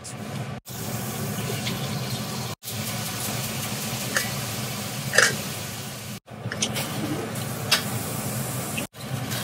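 Gas burner flame hissing under a stainless steel pot of water coming up to heat, with a few light metallic clinks of the pot's lid being lifted, the sharpest about five seconds in. The sound breaks off briefly three times.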